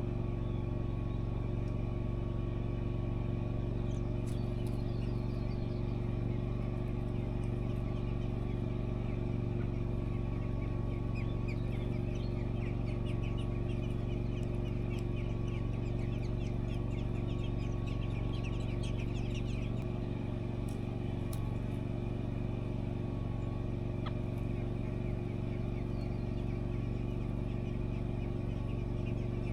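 A steady, even machine hum runs throughout, with short high bird chirps coming thick and fast for several seconds in the middle, from the robins and their chicks at the nest.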